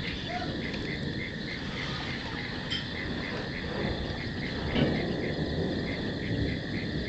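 Crickets chirping steadily outdoors at night, about three chirps a second, over a low rumble that swells briefly about five seconds in.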